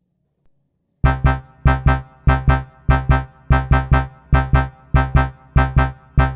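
Electric-piano music starting abruptly about a second in: short keyboard chords struck in a repeating, bouncy rhythm of about three to four notes a second.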